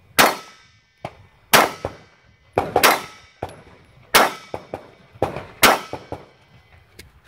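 Semi-automatic pistol fired slowly, about six shots roughly a second apart. Some shots are followed by a short metallic ring, the sound of steel targets being hit.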